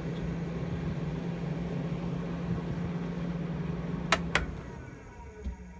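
Battery-powered roof vent fan running steadily, blowing air into the camper with a low hum and an airy rush. About four seconds in come two sharp clicks, and the fan sound then dies away.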